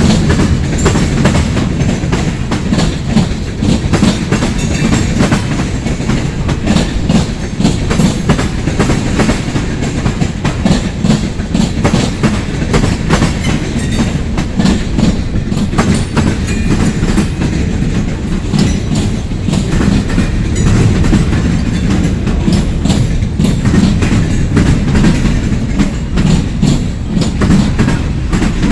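Loaded freight cars of a long train rolling past at steady speed. There is a steady low rumble of steel wheels on rail and continual clicking and clacking as the wheels pass over rail joints.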